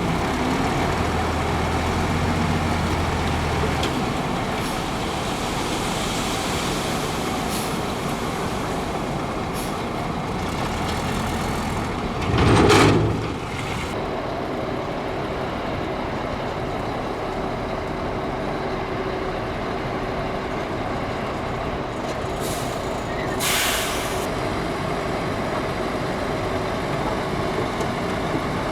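Heavy diesel earthmoving machinery running steadily, with a short, loud hiss about halfway through and a shorter, fainter one about three-quarters of the way in.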